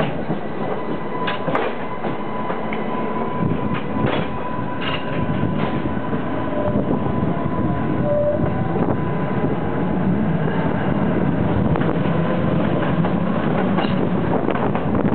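Tatra T5C5 tram running, heard from inside: wheels clicking over rail joints and points in the first few seconds under a steady rolling rumble, with a thin steady whine, the rumble growing as it gathers speed.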